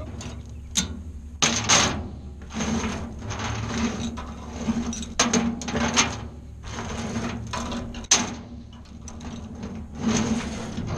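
Irregular metallic clanks, knocks and rattles of parts being handled on an old Ford 600 tractor, over a steady low hum.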